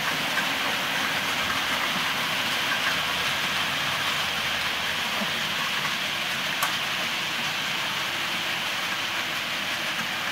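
Hornby 00 gauge model train running along the track: a steady rolling rattle of small metal wheels on the rails, with one sharp click about six and a half seconds in.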